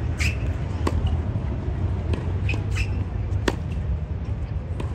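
Tennis balls being struck by rackets and bouncing on a hard court during a practice rally: a few sharp pops a second or more apart, the loudest about three and a half seconds in. Short squeaks of tennis shoes on the court and a steady low rumble of wind or background noise underneath.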